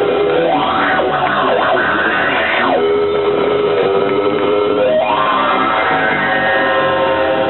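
Punk rock band playing live, with distorted electric guitars holding notes and sliding up and down in pitch several times.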